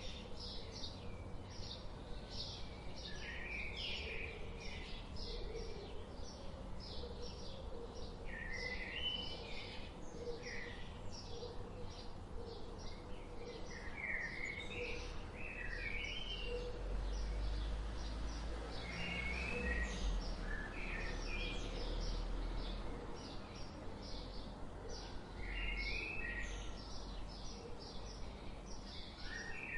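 Several birds chirping and singing in a forest chorus, with many short high chirps and trills following one another throughout. Under them runs a low rumble that grows louder for a few seconds in the middle.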